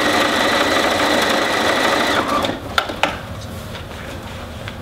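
Bernina electric sewing machine running steadily, top-stitching around a vinyl-laminated fabric strap, then stopping about two seconds in; a couple of short clicks follow.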